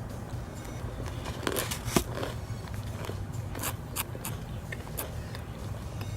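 Close-miked eating of a crunchy ice cream cone: scattered crunches and small clicks, with a sharper crack about two seconds in, over a low steady hum.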